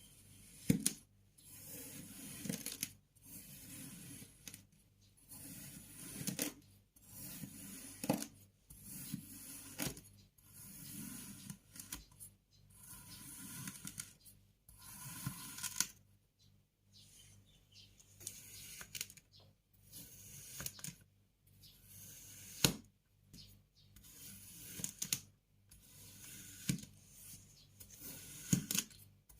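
Kinetic sand being cut and scraped with a knife: a run of short, crisp crunching strokes about every second or so, with a few sharp clicks.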